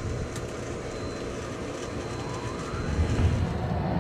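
Pentair MasterTemp 250 gas pool heater's exhaust fan starting up with a short rising whine a little past halfway, then running louder over the steady hum of the pool pump. Only the fan is heard and no burner ignition comes on top of it: this is the heater's no-heat fault, which the owner puts down to a safety switch or sensor that will not let the gas burner light.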